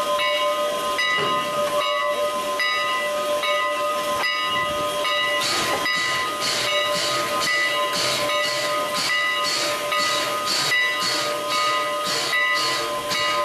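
Canadian National 89, a 2-6-0 Mogul steam locomotive, working with exhaust chuffs at about two a second. The chuffs get stronger about five seconds in. Steady hissing and ringing tones run beneath them.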